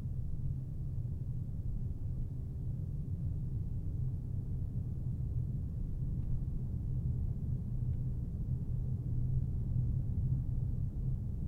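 A car driving along steadily: a low, even rumble of engine and road noise.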